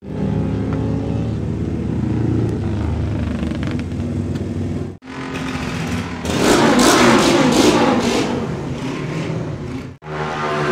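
Classic Triumph motorcycle engines running in three short clips: first a parallel twin idling steadily, then after a cut a racing bike's engine running louder and revved up a second or so in, then after another cut a third engine running steadily.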